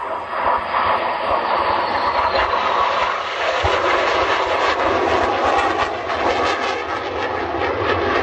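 F-100 jet flying past with a loud, steady jet rush that lasts several seconds, and a high whine that drops slowly in pitch as it goes by.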